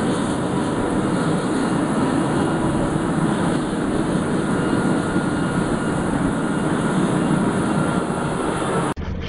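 Helicopter with a shrouded fenestron tail rotor running on the ground: a steady, loud turbine and rotor noise with a faint steady whine. It cuts off abruptly near the end to a quieter, different sound.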